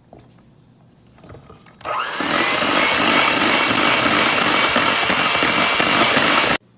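Electric hand mixer switched on about two seconds in, its motor winding up and then whirring steadily as the beaters churn flour into banana batter in a stainless steel bowl, then stopping abruptly near the end.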